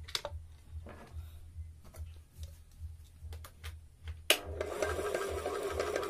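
A few faint clicks as the wiring is handled, then about four seconds in an Orient ceiling fan motor, with its blades off, is switched on and runs with a loud, steady whirring noise with several tones. This is excess noise coming from inside the motor while it turns.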